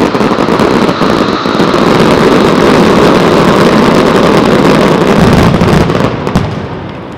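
Dense, continuous barrage of aerial firework shells bursting and crackling, so many at once that they run together into one loud rumble; it dies away about six and a half seconds in.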